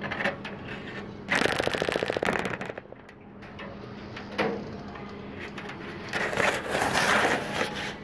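Budgerigar chicks giving raspy, rapidly pulsed begging calls in two bursts: one lasting about a second, starting a little over a second in, and a longer one near the end.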